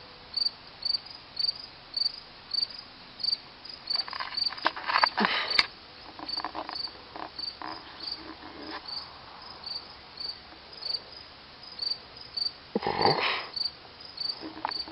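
A cricket chirping steadily, about three short high chirps a second, with brief louder noises about four to five seconds in and again about thirteen seconds in.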